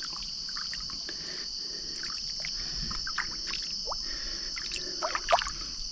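Steady high-pitched chorus of night insects, with small splashes and trickles of shallow water around a hooked young caiman, a few louder splashes near the end.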